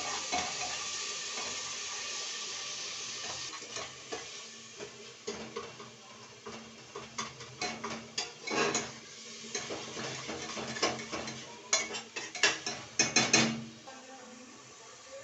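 Onion paste sizzling in hot mustard oil in an aluminium pressure cooker, the sizzle fading over the first few seconds. A metal spoon stirs and scrapes against the pot, with clinks and scrapes coming thicker in the second half and loudest just before the end.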